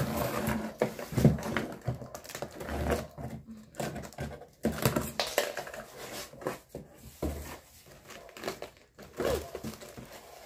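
Packing tape being peeled off a cardboard box, then the cardboard flaps being pulled open and plastic-wrapped notebooks rustling as they are handled. The sounds are irregular, with short scrapes, clicks and crinkles.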